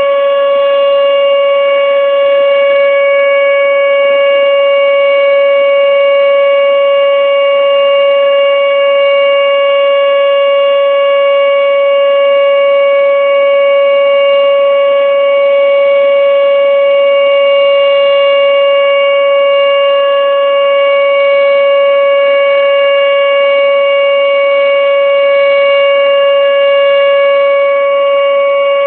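Outdoor tornado warning siren sounding its weekly test: one loud, steady tone held without rising or falling.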